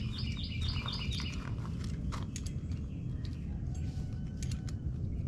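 A songbird singing a fast run of repeated notes for about the first second, with scattered sharp clicks of a metal wrench being handled and fitted onto a bolt, over a steady low background rumble.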